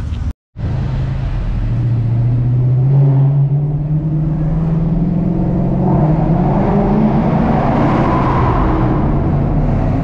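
Chrysler 300 heard from inside the cabin while driving. The engine note climbs slowly as the car gathers speed, under a steady rush of tyre and road noise that swells in the middle.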